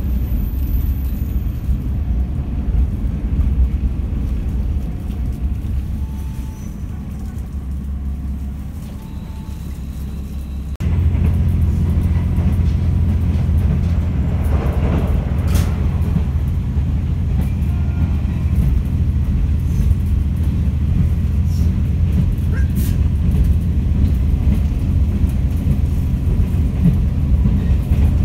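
Inside a moving passenger train: a steady low rumble of running gear and rail noise. The sound jumps abruptly louder and deeper about eleven seconds in.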